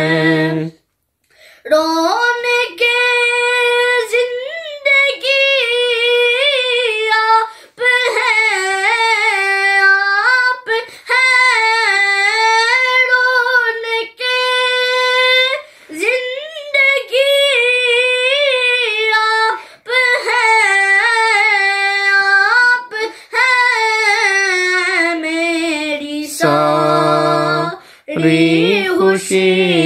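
A boy singing an Urdu devotional song (naat) unaccompanied: a high, ornamented melody in long phrases broken by short breaths. Near the end the singing drops briefly to a much lower voice.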